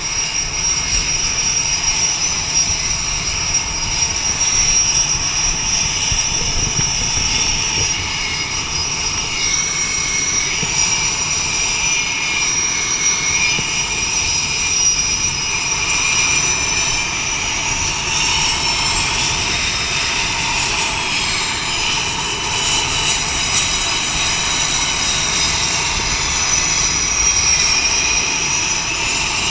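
F/A-18 jet engines running at taxi power: a steady loud rumble under high whining tones. The whine drifts in pitch, rising around two-thirds of the way through and again near the end.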